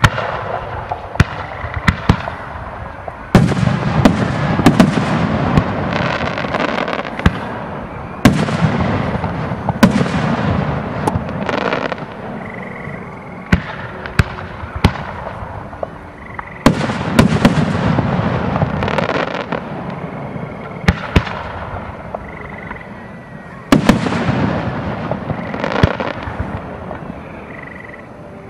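Aerial fireworks shells launching and bursting in quick succession: sharp bangs followed by long rolling echoes, coming in waves every few seconds.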